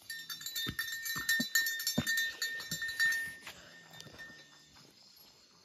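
Goats moving about in a pen: irregular clicks, knocks and clinks for about the first three seconds, then fainter, over a thin steady high tone.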